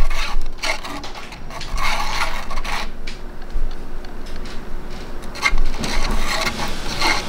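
Disposable wooden chopsticks stirring broth in an instant-noodle cup, scraping and rubbing against the cup's wall and bottom in uneven strokes. The broth has superabsorbent polymer powder stirred into it to gel it.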